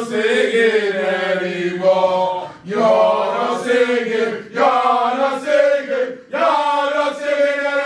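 Men chanting a football song together in long, held sung phrases, four of them with short breaks between.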